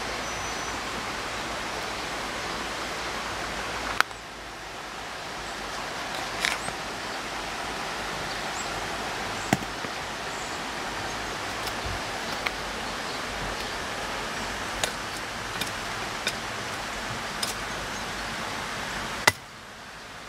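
Steady outdoor background hiss with a few sharp clicks and snaps scattered through it. The hiss drops off abruptly about four seconds in and again near the end, then slowly swells back.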